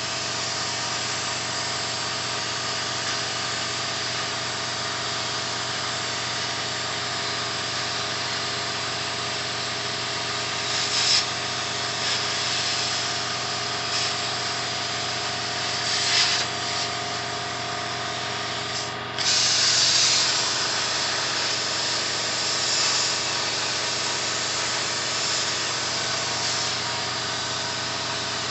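CNC plasma table's torch cutting steel plate: a steady hiss of the plasma arc and air over a constant machine hum, the hiss swelling louder a few times in the second half.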